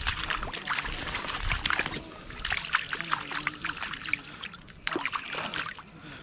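A trout splashing and flapping in a landing net at the water's edge, with water trickling and dripping off the mesh in short, irregular splashes.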